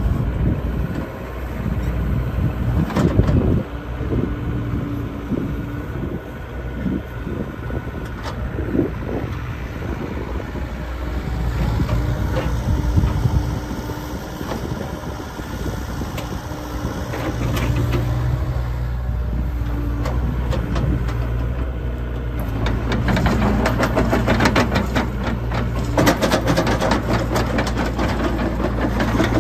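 The diesel engine of a 2016 Hitachi ZX85USB-5 mini excavator running steadily, with scattered knocks and clanks. It gets louder and busier with clatter in the last several seconds.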